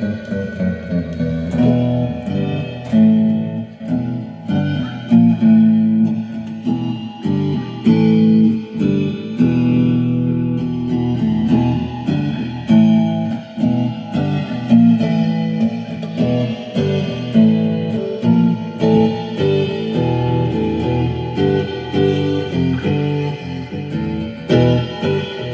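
Guitar played in a free improvisation: a quick run of picked notes and chords, mostly in the low-to-middle register.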